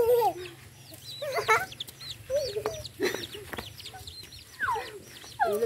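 Chickens clucking: many short calls that rise and fall in pitch, one after another.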